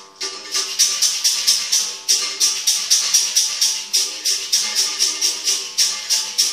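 Berimbau played in a steady rhythm: the stick strikes the steel wire about four times a second, each stroke with the shake of the caxixi basket rattle, over the wire's ringing tones. The playing dips briefly at the very start, then runs on evenly.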